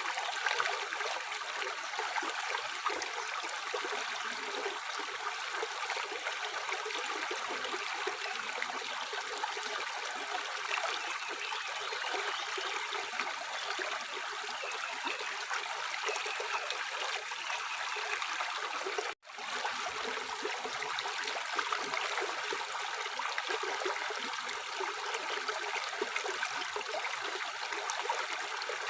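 Tap water running steadily into a sink, an even splashing hiss, cut off for a split second about two-thirds of the way through before it resumes.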